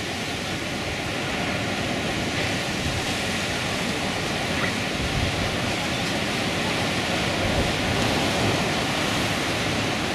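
Sea surf breaking on a rocky shore: a steady, even wash of noise.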